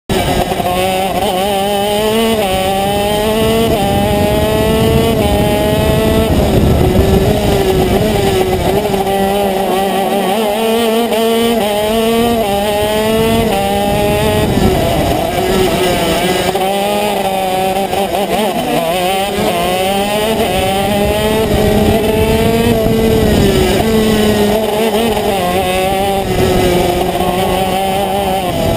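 Racing kart engine heard from the driver's seat under hard running, its pitch repeatedly climbing for a second or two and then dropping back as the throttle is worked through the corners.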